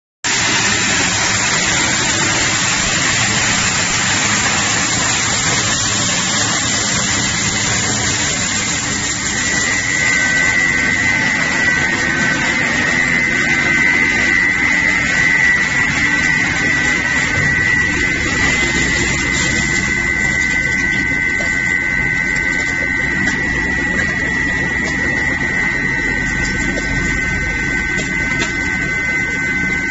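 Single-shaft can shredder running: its electric motor and belt drive give a steady mechanical noise, and a high steady whine joins about a third of the way in.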